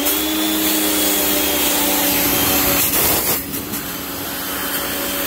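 Electric pressure washer running under load: the pump motor hums steadily as the trigger is held, under the loud hiss of the high-pressure water jet from the nozzle. The motor hum comes in right at the start and rises slightly before settling, and the spray hiss dips briefly about three seconds in.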